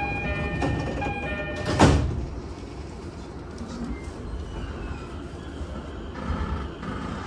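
JR East E231-series train's door chime repeating its electronic tones, a chime slightly deteriorated, stopping about a second and a half in; the sliding doors then shut with a loud thud, and steady rumbling cabin noise follows.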